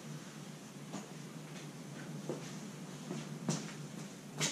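Faint room tone with a few soft clicks and knocks, the loudest two near the end, from the LED light bar's wire harness being handled and plugged in.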